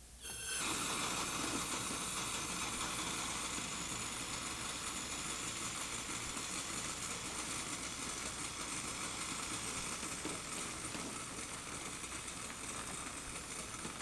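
Refrigerant hissing steadily as it is released in a jet and evaporates. The hiss starts abruptly and tapers off near the end.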